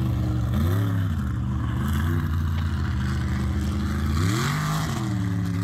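Mud truck engine running hard through a mud pit, revving up and back down about a second in and again near the end.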